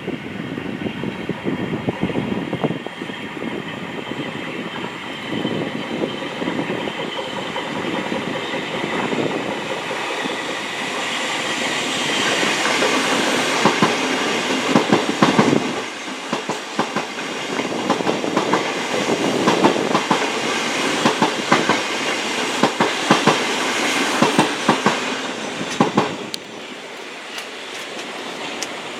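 Thameslink Class 700 electric train passing, its wheels clicking rhythmically over rail joints and points. The clicking is loudest through the middle and later part, then it drops away near the end.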